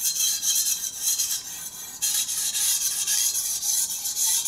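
Shun Premier chef's knife being sharpened on a whetstone: the steel blade is pushed back and forth across the stone in quick scraping strokes. The strokes ease off for a moment about one and a half seconds in, then carry on.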